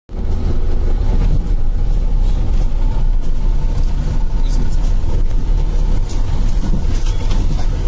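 Cabin noise of a vehicle driving over a rough, potholed road: a loud, steady low engine and road rumble with scattered light rattles and knocks.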